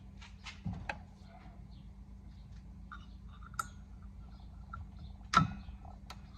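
A few knocks and clicks from handling a drop saw, the loudest a single clunk about five seconds in.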